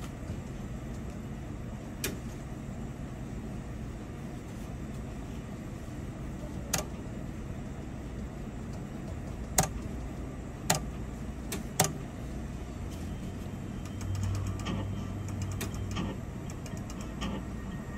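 Electronic slot machine running its bonus spins over a steady low background hum, with a handful of sharp clicks spread through the spins. Near the end a low hum and short electronic tones come in as the bonus win is tallied.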